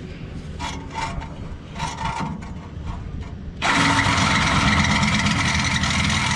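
A power tool starts suddenly about three and a half seconds in and runs loud and steady, after a stretch of quieter low rumble with a few faint knocks.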